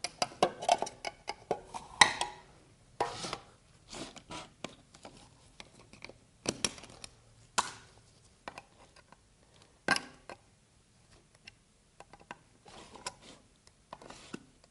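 Lids being pried off metal paint cans with a tool: irregular metallic clicks, taps and short scrapes, the louder snaps a second or two apart.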